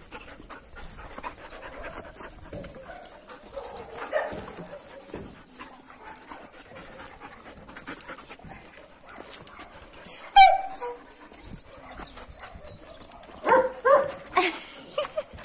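Shelter dogs panting and moving close by, with one sharp, high yelp about ten seconds in and a few short yips near the end.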